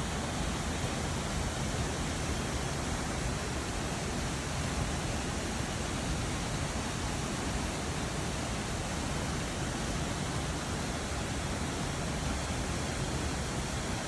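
Jion Falls waterfall: water falling and rushing in a steady, unbroken roar.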